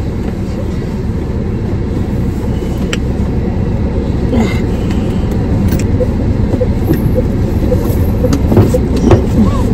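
Steady low rumble of a car heard from inside the cabin, slowly growing louder, with a few faint clicks.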